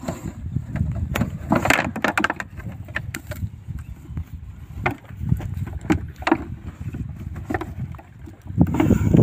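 Wind rumbling on the microphone, with scattered sharp clicks and crackles from handling a plastic container; the rumble swells louder near the end.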